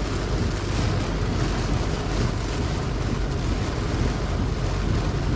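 Heavy rain falling on a slow-moving car, mixed with tyre spray on the flooded road, a steady rushing noise heard from inside the cabin.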